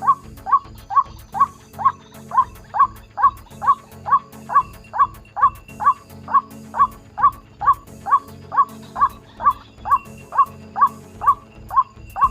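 White-breasted waterhen call, a short rising note repeated evenly about two to three times a second without a break. It is the kind of call played from a recording to lure waterhens into snares.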